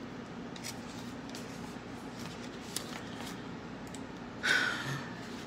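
Sheets of printed paper being handled: faint rustles and light ticks over a steady low room hum, with a short louder rustle about four and a half seconds in.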